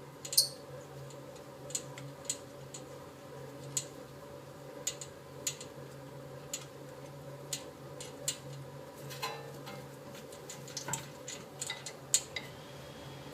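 Light metallic clicks and clinks of hand tools and brake parts being handled, irregular and spaced a second or so apart, with a quick cluster near the end, over a steady low hum.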